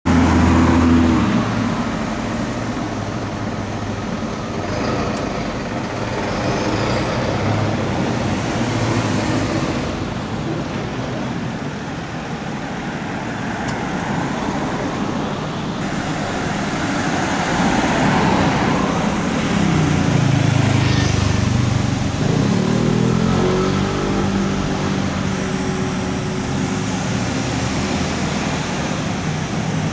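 Road traffic passing, a steady hum of vehicles, with one engine rising in pitch as it speeds up a little past twenty seconds in.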